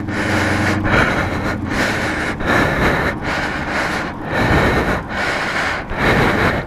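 A man breathing hard and fast from the exertion of pushing a heavy motorcycle, loud and close to the microphone, with a rapid run of breaths a little more than one a second.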